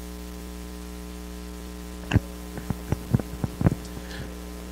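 Steady electrical mains hum in the audio feed. About two seconds in, a quick cluster of sharp knocks and clicks comes in and stops before the four-second mark.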